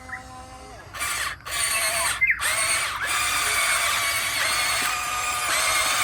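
Small electric motors and gearboxes of radio-controlled toy construction machines whining as they work. The whine starts about a second in, breaks off briefly twice, then runs on, rising and falling in pitch.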